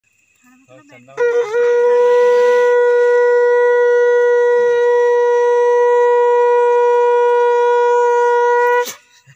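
Conch shell (shankh) blown in one long, steady note of about seven and a half seconds, wavering up briefly as it starts and cutting off sharply near the end. It is sounded as part of a Hindu puja.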